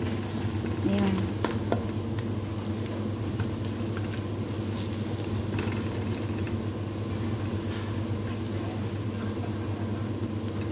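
Chopped onion frying in oil in an aluminium wok: a steady sizzle, with the scrapes and light clicks of a wooden spatula stirring it around the pan.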